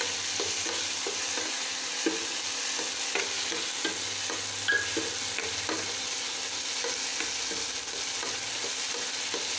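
Green black nightshade berries (manathakkali kai) sautéing with tomato and onion in oil in a stainless steel kadai, a steady sizzle, with a metal spoon scraping and clicking against the pan again and again as the mixture is stirred.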